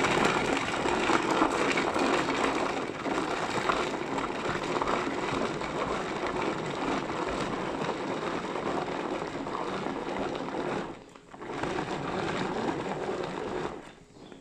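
Hand-cranked manual food chopper grinding garlic and onions: a continuous whirring and chopping rattle from the crank, gears and blades in the plastic bowl. It pauses briefly about eleven seconds in, then runs again and stops just before the end.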